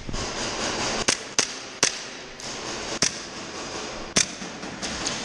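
Airsoft gunfire: five sharp, single cracks at uneven intervals over a steady background hiss.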